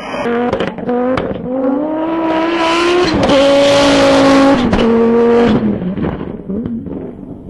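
Rally car engine pulling hard, its pitch climbing and stepping at gear changes about three seconds in and again near five seconds, then easing off near the end.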